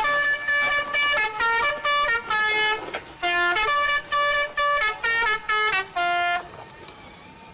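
A musical horn playing a quick tune of short buzzy notes in two phrases, with a brief break about three seconds in; the tune ends about six and a half seconds in.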